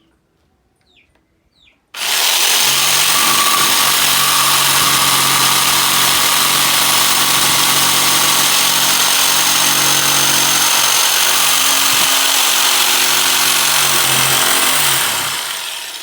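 Total 800 W electric jigsaw cutting a board with its pendulum action set to 0, a smooth cut. It starts suddenly about two seconds in, runs steadily for about thirteen seconds, and winds down near the end.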